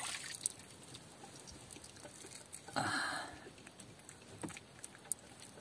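Faint scattered clicks and light patter of a squid hand line being hauled in and handled, with a short hiss about three seconds in.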